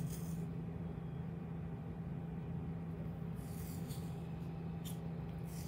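Flea brush drawn through a Bernese mountain dog's thick coat in three or four short scratchy strokes, over a steady low hum.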